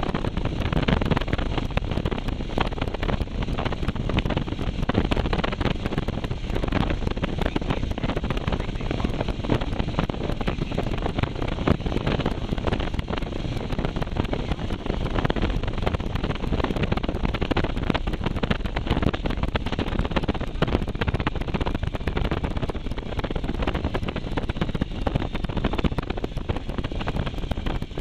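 Motorcycle riding at speed, its engine buried under steady, heavy wind buffeting on the microphone.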